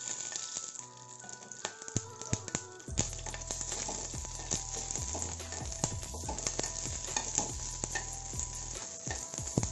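Whole green chillies sizzling in hot oil in a metal kadhai, with a steel spatula clicking and scraping against the pan as they are stirred. The sizzle grows louder about three seconds in.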